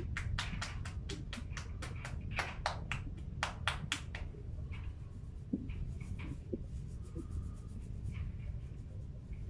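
Massage tapping: hands striking rapidly on the head over a towel, about five quick pats a second, stopping about four seconds in. After that only faint rubbing and a few soft knocks.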